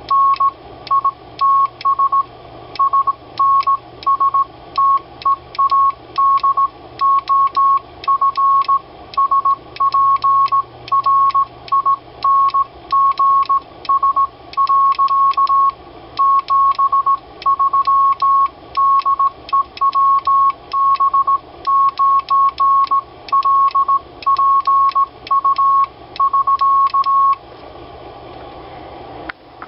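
Morse code sent on a handmade brass semi-automatic telegraph key (bug) that uses magnets instead of springs: a steady beep of about 1 kHz keyed in fast dots and longer dashes, each keying with a sharp contact click. The sending stops near the end.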